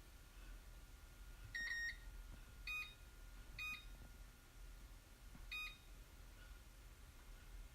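Microwave oven's control panel beeping: one slightly longer, lower beep, then three short, higher beeps at uneven intervals, over a faint steady hum.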